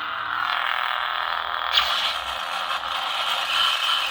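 Lightsaber sound board playing its blade hum through the hilt's small speaker, a steady thin hum with short swells and a sharp accent about two seconds in.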